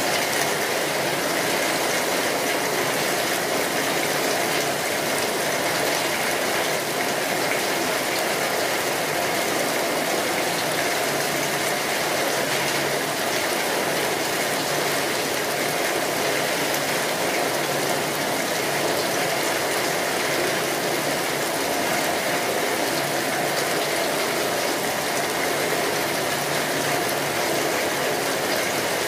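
Steady rain: a dense, even hiss of many small drops landing, with no change in level and no thunder.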